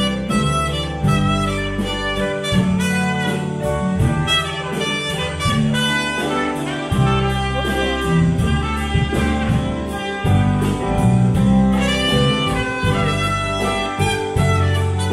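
Live band playing through a club PA, with keyboard, electric guitar, bass and drums over a steady beat.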